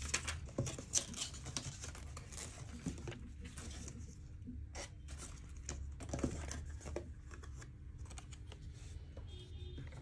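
Paper and cardboard packaging being handled: rustling and crinkling with scattered light taps and clicks, and a louder rustle about six seconds in.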